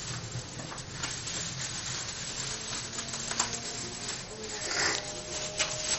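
Plastic bubble wrap crinkling and rustling as it is handled, with many small crackling clicks.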